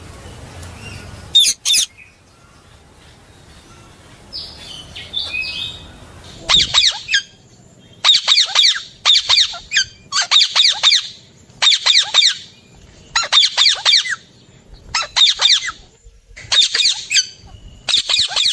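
Alexandrine parakeet squawking: two sharp calls early, then from about six seconds in a regular series of harsh bursts, each a quick run of falling squawks, roughly one burst every second and a half.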